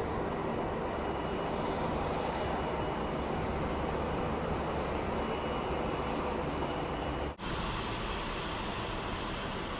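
Steady jet engine noise from a Boeing 777-300ER's GE90 turbofans, with no change in pitch. It drops out for a split second about seven seconds in.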